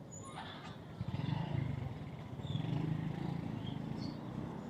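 Street ambience with a low rumble that swells twice, typical of passing motor traffic, and a few short, high bird chirps.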